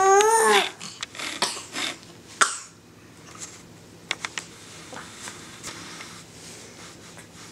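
A baby's drawn-out, high-pitched vocal cry in the first half second, followed by soft rustling and a few light clicks.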